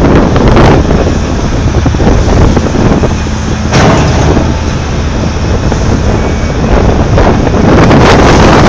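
Komatsu PC8000 hydraulic excavator running, a loud steady low rumble mixed with heavy wind buffeting on the microphone, with a few brief thumps.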